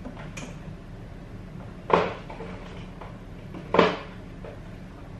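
Two sharp knocks about two seconds apart, with a faint click shortly before, as kitchen things are handled during a search for the cinnamon.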